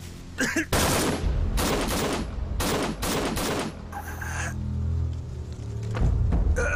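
Bursts of rifle fire: several rapid volleys in close succession, stopping about four and a half seconds in. A low sustained music drone runs underneath.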